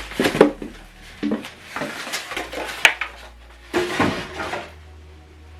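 Hands handling packaging and parts while unboxing a soundbar set: a series of knocks, clicks and short rustling scrapes, with one sharp click near the middle.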